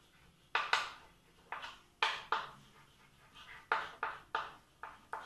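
Chalk writing on a blackboard: about fifteen short scratchy strokes in quick, irregular succession, each starting sharply and fading fast.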